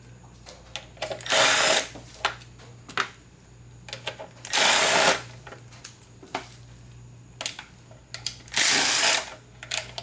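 A power tool runs in three short bursts, each under a second, backing out the 5/16 bolts that hold the scooter's fan shroud. Small clicks fall between the bursts.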